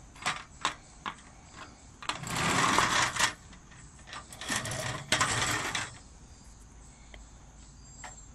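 Handling sounds from a folding aluminium camping table as its top is fitted into the frame: a few light clicks, then two longer stretches of scraping and rubbing. The loudest is about two to three seconds in.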